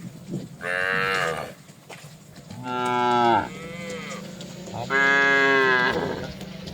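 Cattle mooing: three long calls about a second each, the second lower and ending in a falling tail, over a steady low hum.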